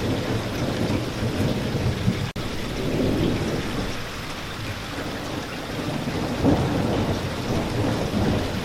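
Steady heavy rain with low, rolling thunder rumbling under it, and a momentary cut-out in the sound about two seconds in.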